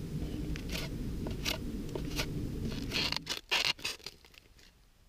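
Knife blade scraping and gouging out the inside of a dry agave stalk in short, irregular strokes, the loudest a little past three seconds in. A low rumble underneath stops about three seconds in.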